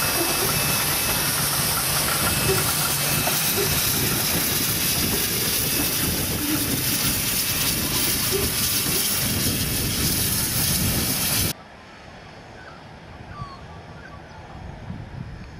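Loud, steady hiss of steam escaping from steam locomotive NM25. It cuts off abruptly about three-quarters of the way through, leaving only a faint background.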